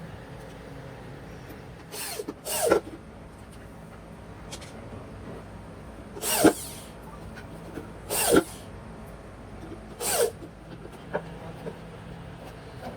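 A workshop power tool run in five short bursts of about half a second each, the pitch dropping away as each one stops, over a steady low background hum.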